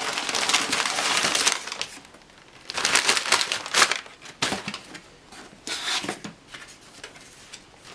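Crumpled packing paper in a shipping box being pulled out and handled, rustling and crinkling in several bursts: a long one at the start, another about three seconds in and a shorter one around six seconds.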